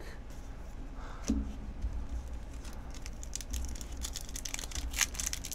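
Foil Pokémon booster pack wrapper crinkling as it is handled and torn open: light crackling with many quick ticks, busiest in the second half.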